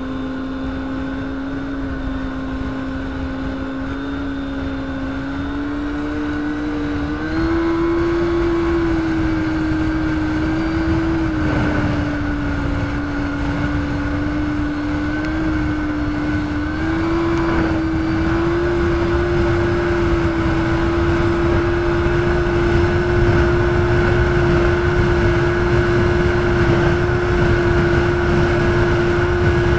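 Yamaha Attak snowmobile's four-stroke engine running at speed under way, a steady droning note that steps up in pitch about seven seconds in and again a little past halfway, over a low rushing noise.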